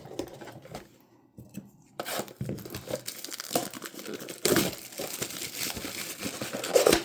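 Plastic wrapping on a trading-card blaster box crinkling and tearing as it is ripped open. The crackle starts about two seconds in and gets louder about halfway through.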